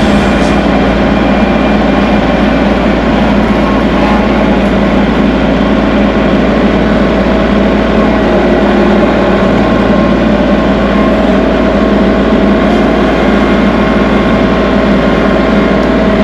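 Kubota tractor's diesel engine running steadily at a constant engine speed.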